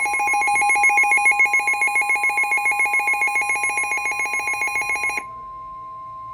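Weather radio receiver's alert alarm: a loud, rapidly pulsing electronic ringing of several tones, signalling a warning. About five seconds in it cuts off and gives way to a quieter steady tone, the weather radio warning alarm tone that comes before a severe thunderstorm warning message.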